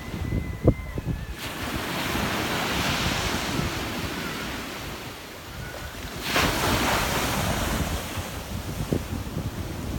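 Sea waves breaking on rocks and washing up the beach in two surges: the first builds from about a second and a half in and dies away, the second breaks more sharply about six seconds in. Wind buffets the microphone throughout, with a short thump about a second in.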